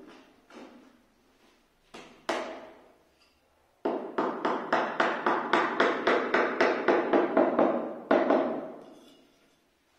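Wooden hammer handle knocking on a granite strip as it is tapped down into place. A few single knocks come first, then from about four seconds in a quick, even run of about five knocks a second for some four seconds, which ends and dies away.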